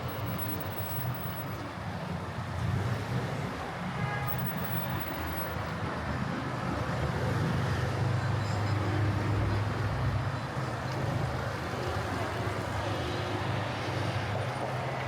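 City street traffic: a steady wash of passing vehicles, with a low engine rumble that builds to its loudest about halfway through and then eases off.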